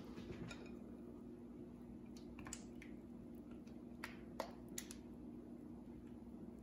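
A few faint clicks and taps of a glass mixing bowl and spatula being handled as thick custard is tipped out over ladyfingers in a metal pan, the sharpest about halfway through, over a steady low hum.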